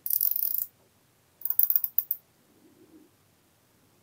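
Nylon cable ties being pulled tight through their ratchet heads: a fast, dense rattle of clicks lasting under a second, then a second, more broken run of ratcheting clicks about a second and a half in.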